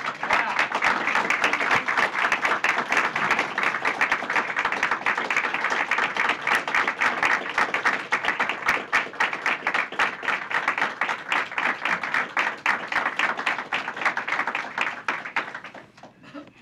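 Audience applauding: many hands clapping densely and steadily, dying away near the end.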